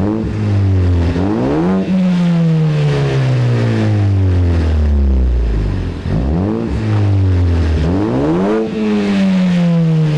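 Ford Focus ST's turbocharged 2.0 L EcoBoost four-cylinder exhaust, the engine revved twice. Each time the revs climb quickly in under a second and then fall away slowly over several seconds.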